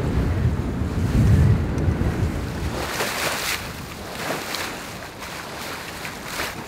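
Wind buffeting the microphone with a heavy rumble. Then, from about three seconds in, the bow wave of a sailboat sailing upwind hisses and splashes along the hull in surges a second or two apart.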